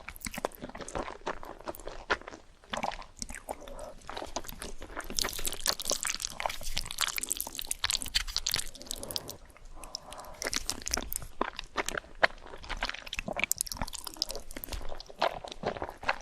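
Close-miked eating: crisp, crunchy bites and chewing of fried food, with a dense run of crackling crunches about five seconds in.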